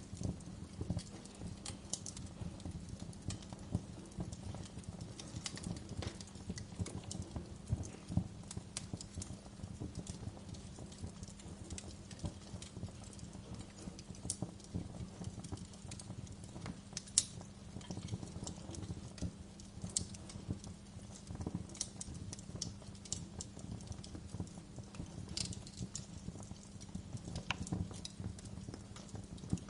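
Wood fire burning in a fireplace, crackling with frequent small pops over a low steady rumble. One sharper pop stands out about seventeen seconds in.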